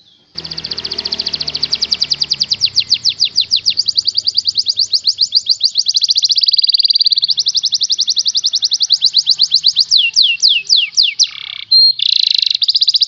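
Domestic canary singing a fast, tight trill of high, downward-sweeping notes, about ten a second, kept up almost without a break. Near the end it switches to a few slower sweeping notes, pauses briefly, then goes back to the rapid trill.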